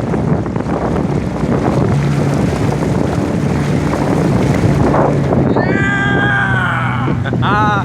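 Wind buffeting the microphone over water noise and the steady low hum of a small boat's motor. Near the end come a few short pitched cries that rise and fall.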